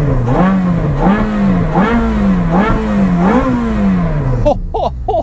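Ferrari F430's flat-plane-crank V8, breathing through an aftermarket Fi Exhaust with its valves open, revved repeatedly while stationary: about five quick rises in pitch, each falling back, before it drops to idle near the end. The tone is high-pitched.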